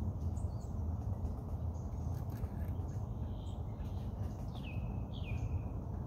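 Small birds chirping now and then over a steady low rumble of breeze at a lakeshore. About two-thirds of the way in, a bird gives two calls that slide down in pitch and level off, half a second apart.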